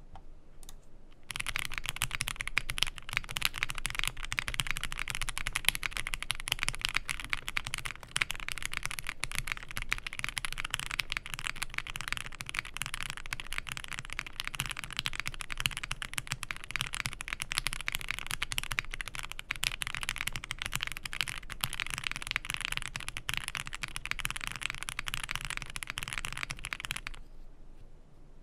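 Steady fast typing on a Zoom65 V2 mechanical keyboard with lubed and filmed Gateron Oil King linear switches, ABS keycaps, a polycarbonate plate and all its stock foam: a dense, continuous run of keystrokes. The typing starts about a second in and stops about a second before the end.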